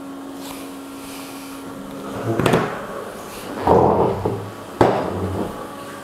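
Ecovacs Deebot X1 Omni robot vacuum's base station washing the mop pads before a clean. A steady motor hum stops a little over two seconds in, followed by a sharp mechanical knock, a short noisy whir about two-thirds through, and another sharp click.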